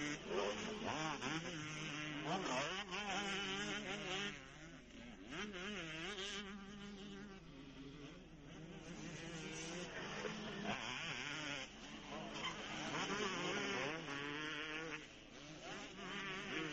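Several motocross bikes' engines revving up and down at once, a buzzing whine rising and falling as riders accelerate and back off through the corners; louder for the first few seconds, dropping back, then building again later on.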